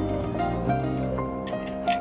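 Background music: a melody of held notes.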